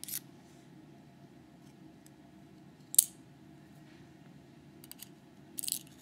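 Small sharp metallic clicks of tweezers and lock pins being handled while the pins are taken out of a Metal X6V pin-tumbler lock cylinder. A single click comes about three seconds in and is the loudest, and a few quicker clicks come near the end.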